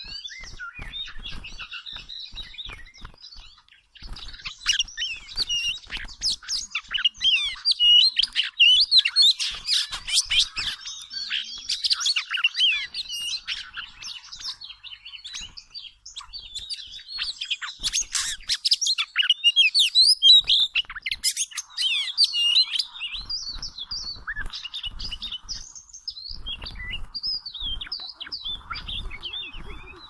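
Oriental magpie-robins calling in a rapid run of short chirps and chattering notes that rise and fall, thickest in two loud spells, with scattered clicks and knocks among them.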